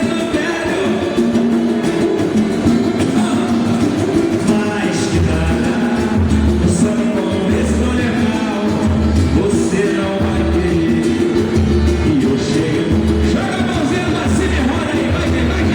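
Live samba-pagode band with a lead vocal singing over the music. About five seconds in, a deep bass beat comes in, pulsing roughly once a second.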